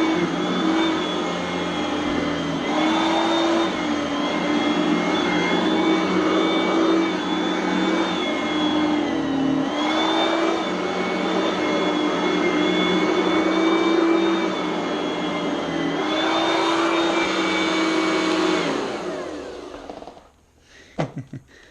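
Oreck Elevate Conquer upright vacuum cleaner running with a steady whine whose pitch dips briefly a few times. It is switched off about 18 seconds in and its motor spins down over a second or two. A few clicks follow near the end.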